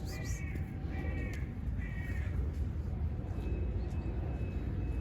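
A crow cawing three times in quick succession, the calls about a second apart.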